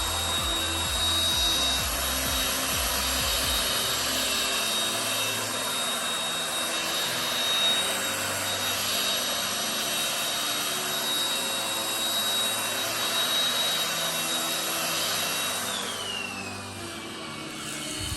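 Tefal X-Nano cordless stick vacuum running and sucking up loose dirt from the floor, with a steady high-pitched motor whine. Near the end it is switched off and the whine falls away as the motor spins down.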